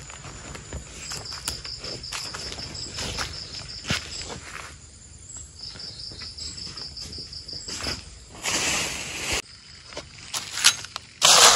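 A cricket-like insect trilling in fast, even pulses, in two stretches of a few seconds each, over scattered footsteps and rustling. Near the end there is a burst of loud rustling noise, and another starts just before the end.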